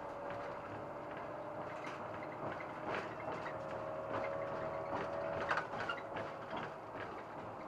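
SOR NB 12 city bus running, with a faint steady whine that rises slowly and falls away about five and a half seconds in, over scattered rattles and knocks from the body.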